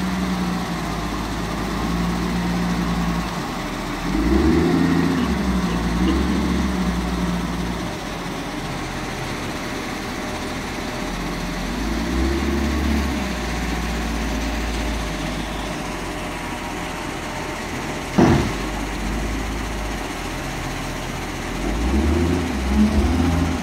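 Wheel loader's diesel engine running, with several revving surges as the bucket of sand and gravel is worked and lifted, and a single sharp knock about eighteen seconds in.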